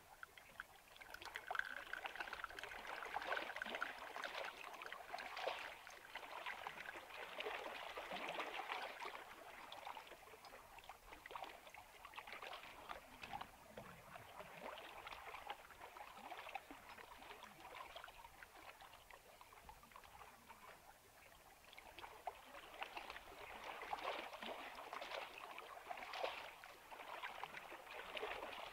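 Water noise: a splashing, trickling sound full of fine crackles that swells, fades in the middle, and swells again.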